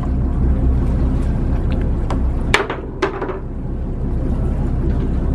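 Boat engine running steadily with a low rumble, with a few sharp knocks, two of them close together around the middle, as someone clambers over the boat's rail onto a wooden wharf.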